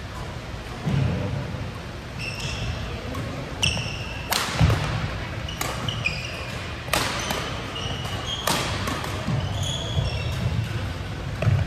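Men's doubles badminton rally in a sports hall: several sharp cracks of rackets hitting the shuttlecock, a second or few apart. Between them come many short high squeaks of court shoes on the floor and low footwork thuds.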